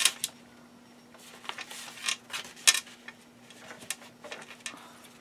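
Sheets of paper and kraft cardstock rustling and sliding against each other as they are handled and folded, with a few sharp taps.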